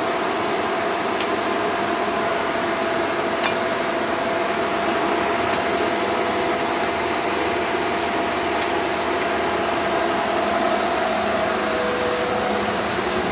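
Bullard Cutmaster 42 vertical turret lathe running: a steady mechanical whirr with a constant whine, a second lower whine joining near the end.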